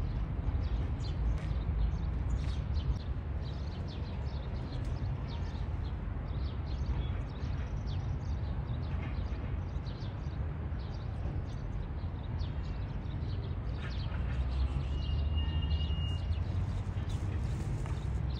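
Outdoor ambience: a steady low rumble with scattered light ticks, and a short high tone held for about a second near the end.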